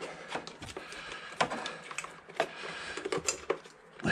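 Irregular light clicks, knocks and rustling as the motorcycle's carburettor bank and its rubber hoses are handled and shifted by hand.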